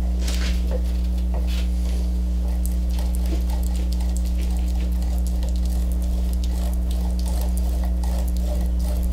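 Small brush dabbing and spreading wet wood glue over the end grain of an oak cutting board, a run of irregular soft wet crackles and squishes. A steady low hum sits underneath and is the loudest sound.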